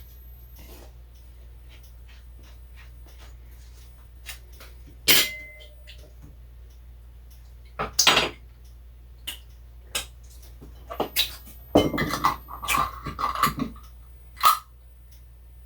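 Kitchen clatter of dishes and utensils: scattered knocks and clinks, one sharp ringing clink about five seconds in and a busier run of knocks between about eleven and fourteen seconds, over a low steady hum.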